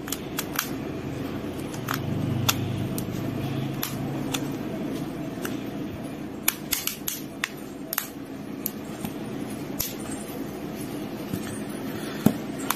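Plastic housing being pressed and snapped into place on a Redmi Note 11 smartphone: scattered sharp plastic clicks and taps, about a dozen, over a steady low hum.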